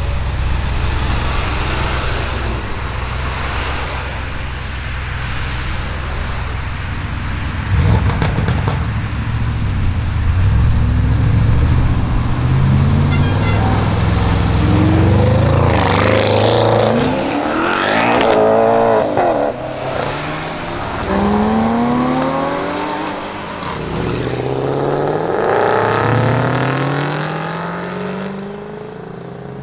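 Audi RS6 Avant C8's twin-turbo 4.0 V8, on a decat Capristo exhaust with the OPF deleted, running with a steady low rumble for several seconds, then accelerating hard. Its pitch climbs and drops back in steps through a series of gear changes, with a loud swell near the middle.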